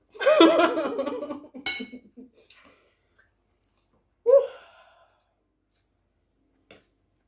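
A woman's wordless vocalising for about a second and a half, then a sharp click. About four seconds in comes a short voiced sigh-like sound, and a faint click near the end.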